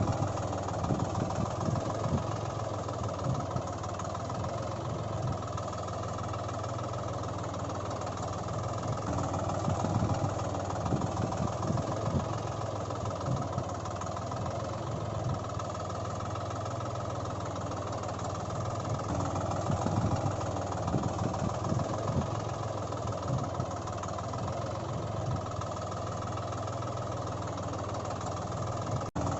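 Diesel engine of a heavy machine running steadily, with a constant low hum.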